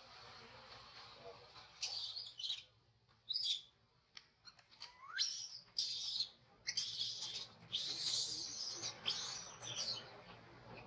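Baby macaque crying in a string of high-pitched squeals and screams, one sliding sharply upward about five seconds in; the cries come almost without a break in the second half.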